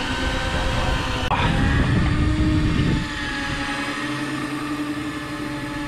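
Steady motor hum on a small boat, from the outboard or the electric reel, with a low rushing noise under it that drops about three seconds in.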